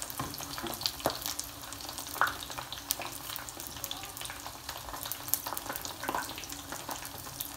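Samosas shallow-frying in oil on a very low flame: a steady sizzle with scattered small crackles, and a few light clicks as silicone-tipped tongs turn them in the pan.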